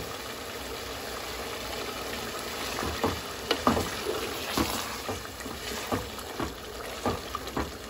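Minced meat and potato curry sizzling in a pot with water just added, stirred with a spatula that scrapes and knocks against the pot several times from about three seconds in.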